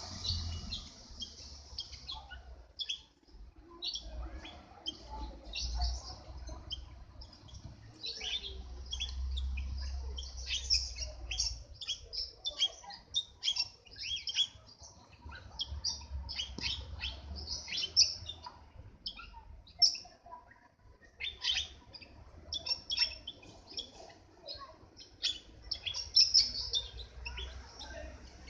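Small birds chirping in many short, high calls, busiest from about a third of the way in, with a short lull past the middle, over a low background rumble.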